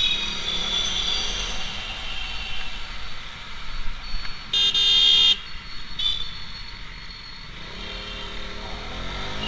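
Motorcycle riding through wet traffic, its engine and road noise running steadily, with vehicle horns honking: short toots at first and one loud blast about halfway through. Near the end the engine pitch rises as the bike speeds up.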